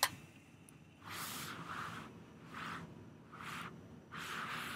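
A sharp click as the toy helicopter's small electric motor stops humming, then about five soft, breathy puffs a little under a second apart: a person breathing close to the microphone.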